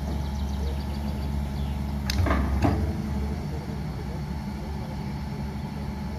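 Hyundai long-reach crawler excavator's diesel engine running steadily, with a sharp click and then a short clatter of knocks about two seconds in as the bucket is lowered to the ground.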